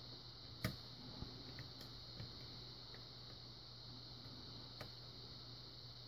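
Faint, scattered clicks of a lock pick working the pin tumblers of a UAP Yale-style rim cylinder during single-pin picking. One sharper click comes just over half a second in, followed by a few lighter ticks.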